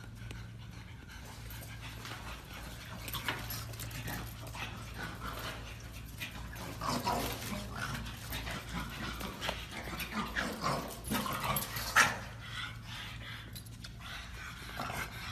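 Pugs playing together, making irregular dog noises through the middle. One short sharp sound, the loudest, comes about twelve seconds in.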